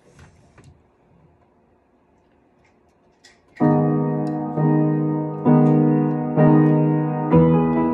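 Upright piano: after a few seconds of near quiet with faint rustling, sustained chords begin about three and a half seconds in, a new chord struck roughly once a second.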